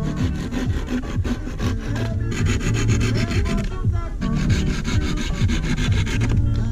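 A knife scraping along a wooden walking stick in quick repeated strokes, in two long stretches with a short break about four seconds in, over background music.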